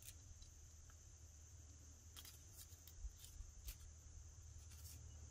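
Near silence: a few faint soft ticks and rustles from fingers handling an iBloom Mini Chocolate Sacher Torte foam squishy toy, over a faint steady high-pitched whine.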